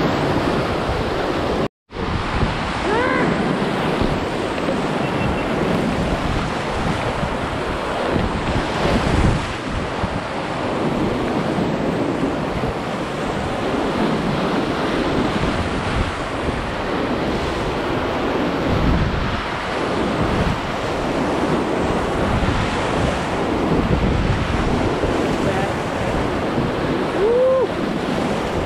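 Whitewater rapids rushing and splashing around a kayak running down the river. The sound cuts out for an instant about two seconds in.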